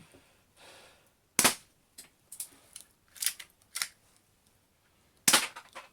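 Galaxy G12 spring-powered airsoft broom-handle pistol firing twice, sharp cracks about four seconds apart, with a scrape and several lighter clicks between them as the slide is cocked by hand; its slide return spring is broken, so the slide has to be pushed.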